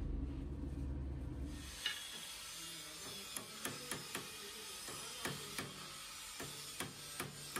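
A steady low hum, then a series of irregular sharp metallic clicks as a drill press chuck key is turned in the chuck's gear teeth to tighten a twist drill bit.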